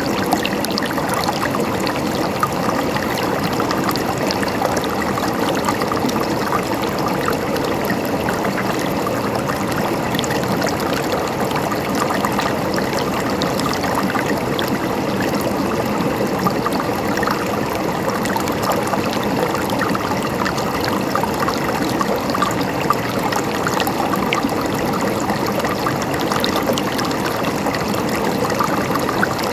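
Mountain stream flowing and trickling over rocks, a steady babbling and gurgling of water.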